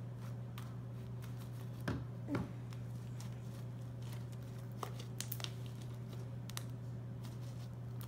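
Fluffy purple slime made from Elmer's glue, contact solution and shaving cream being kneaded and squeezed in the hands: small sticky clicks and crackles, with two louder squelches about two seconds in. A steady low hum sits underneath.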